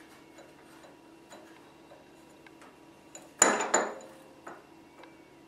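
Two sharp metallic clanks a third of a second apart, ringing briefly, as steel parts of a metal lathe's change-gear train are handled while the reverse idler gear is set in mesh. A faint, even ticking runs about twice a second underneath.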